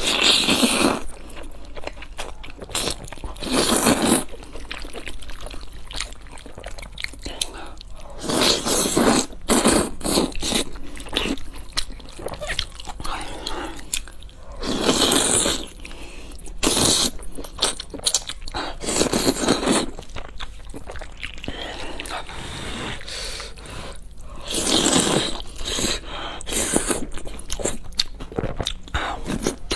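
A person slurping and chewing thick instant black-bean-sauce (jjajang) noodles close to the microphone, with loud slurps every few seconds between steadier chewing.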